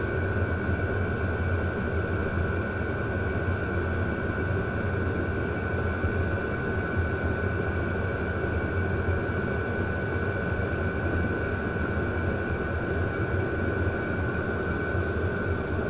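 12-volt WIPPRO diesel heater running steadily with its exhaust muffler off: an even rush of the burner and blower fan with a thin steady whine above it, and no fuel-pump ticking to be heard.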